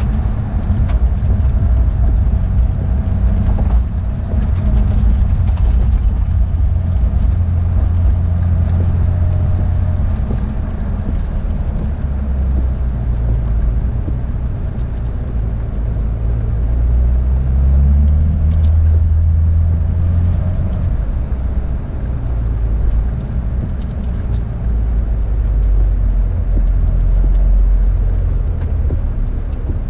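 Porsche 911 GT3 (992) flat-six engine running steadily at low revs, its pitch rising and falling gently a few times near the middle, with road noise underneath.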